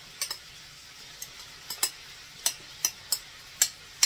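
A spoon clicking and tapping against plastic meal trays and a container while mixed vegetables are spooned out: about ten sharp, irregular clicks. Under them is a faint steady sizzle of ground beef frying in a skillet.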